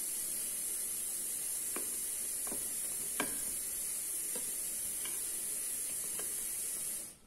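A steady high hiss that cuts off suddenly near the end. Over it, a kitchen knife clicks faintly against a glass baking dish about six times while cutting through a brownie.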